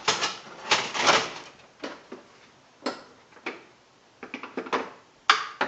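Irregular clicks and knocks from hands working at a Daisy 880 air rifle, trying to get it apart, with a quick run of small clicks a little past the middle.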